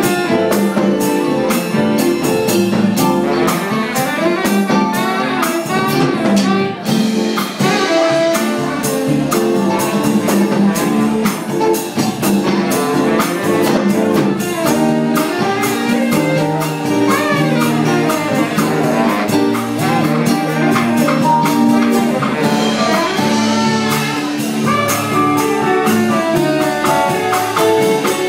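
A saxophone playing a jazz tune with a live band, its melody moving over held notes from the other instruments and a steady ticking percussion beat.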